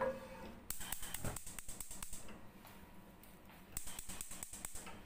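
Cooking oil crackling in a hot non-stick wok: quick, irregular pops in two spells of a second or so each.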